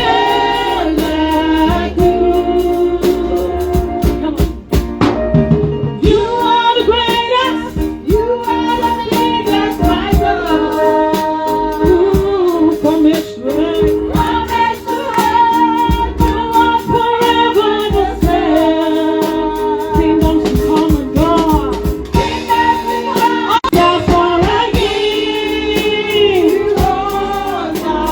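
Live gospel worship music: a lead singer, mostly a woman's voice, singing with instrumental backing and a steady beat.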